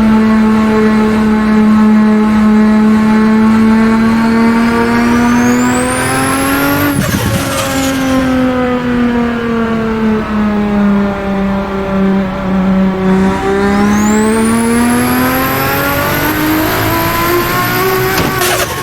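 Turbocharged Nissan Skyline R32 GT-R straight-six pulling hard under boost, a high turbo whistle rising with the revs, then a turbo flutter as the throttle snaps shut about seven seconds in. The engine note sags, then climbs again with the whistle rising once more, and flutters again near the end.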